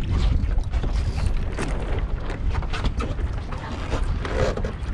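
Wind buffeting a deck-mounted GoPro's microphone, with water splashing against a wooden Streaker sailing dinghy's hull and short knocks from the boat's fittings as the sailor moves.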